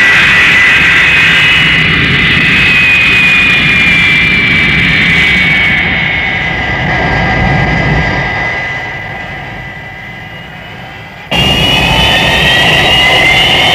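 Jet aircraft engines running loudly with a high whine while the plane rolls along the runway; the whine slowly drops and fades about two thirds of the way through. Then it cuts in suddenly, loud again, with the whine rising in pitch near the end.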